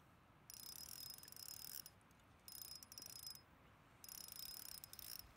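Faint rapid ticking of a fishing reel in three bursts, each about a second long, with short pauses between them, as a large trout on the line is reeled up toward the ice hole.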